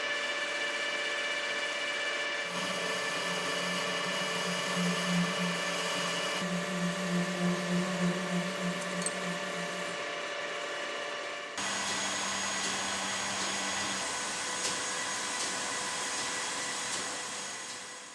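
CNC milling machine running: a steady whine of several held tones over a hiss, which changes abruptly three times and pulses for a few seconds in the middle, then fades out near the end.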